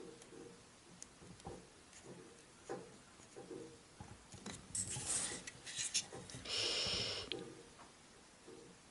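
Hands handling a small wooden model-ship hull: faint taps and scrapes of fingers pressing a thin wooden strip onto the hull, then a few louder scuffs and a brief rustle, as of the hull being moved and lifted off the paper plans, about two-thirds of the way through.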